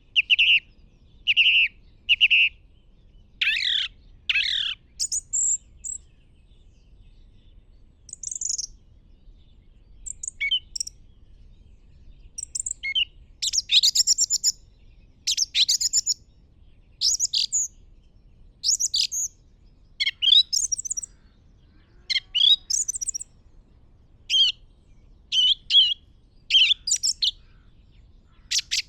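Birds chirping and singing in short, high, varied phrases separated by pauses: three similar chirps at the start, then phrases coming more often from about halfway through.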